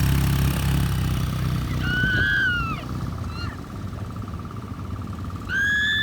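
An ATV engine running, dying away about two seconds in. Two honking calls follow, a short bending one about two seconds in and a louder, longer one near the end.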